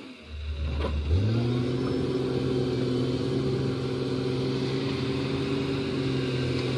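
Komatsu hydraulic excavator's diesel engine revving up about a second in, from a low idle to a steady higher working speed, then running evenly.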